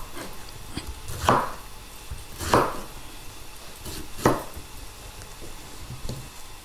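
Kitchen knife cutting through a pineapple onto a wooden cutting board: three clear knocks of the blade meeting the board, a little over a second apart, with lighter cuts between, as the fruit is sliced into wedges and the core trimmed out.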